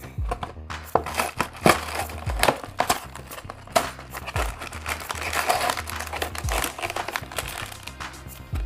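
Cardboard LEGO set box being opened and plastic parts bags crinkling as they are handled. Background music with a steady beat plays underneath.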